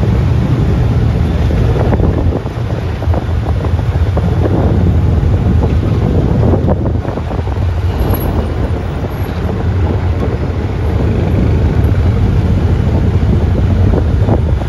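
Off-road side-by-side driving along a dirt track, its engine and tyres running steadily under heavy wind buffeting on the microphone.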